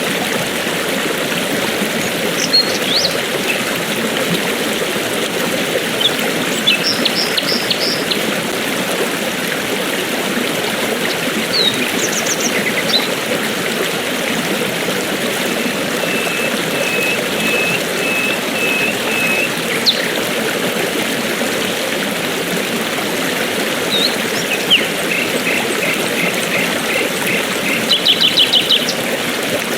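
Steady rush of flowing river water, with birds chirping over it now and then. The birds give short high calls and runs of repeated notes, including a series of about eight even notes in the middle and a quick run near the end.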